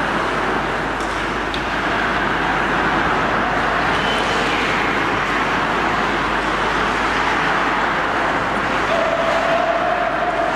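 Steady rushing noise of an indoor ice rink as hockey players skate, their blades scraping and carving the ice.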